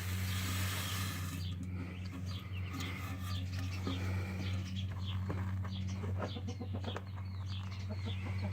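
Chickens clucking and chirping, many short high calls scattered throughout, over a steady low hum.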